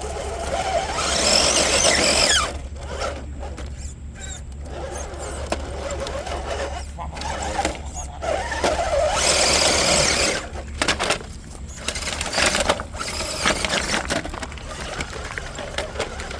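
A 1/10-scale RC crawler's electric motor and gears whine in bursts as the truck is driven over the course. The whine changes pitch, and is loudest about a second in and again around nine seconds in.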